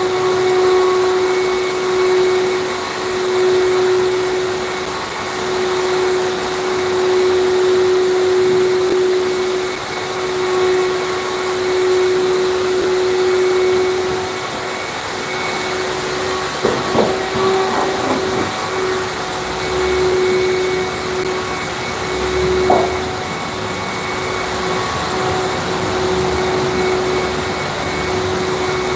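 Vacuum cleaner running steadily with a constant whine, with a few brief knocks and scrapes about two-thirds of the way through.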